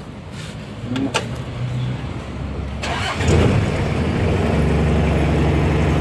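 Toyota 2C four-cylinder diesel engine cranked on the key and catching about halfway through, then idling steadily, started through a newly fitted replacement ignition switch. A sharp click about a second in.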